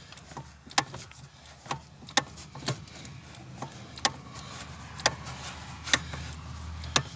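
Lada Granta clutch pedal being pumped by hand, giving a sharp click or crunch at each stroke, roughly one every half second to a second. The pedal's return spring has been sprayed with WD-40, and it is still crunching a little.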